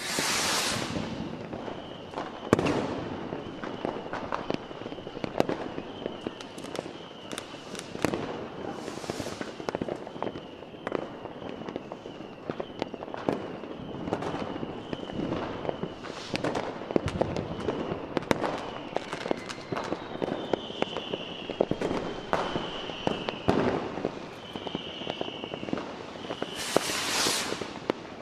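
Fireworks display: a dense, continuous run of aerial shell bangs and crackling, with several longer hissing bursts. Under it a faint high chirp repeats steadily, and a few whistles glide in pitch near the end.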